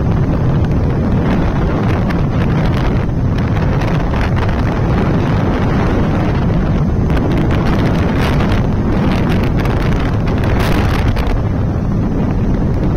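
Wind buffeting the microphone of a Bajaj Pulsar motorcycle rider at highway speed: a steady, loud, low rush of wind, with the bike's running noise beneath it.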